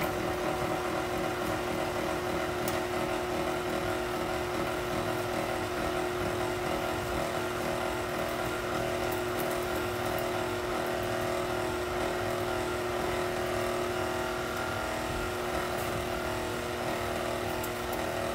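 Electric stand mixer running steadily, its motor humming at one even pitch as it beats a loose chocolate cake batter thinned with boiling water.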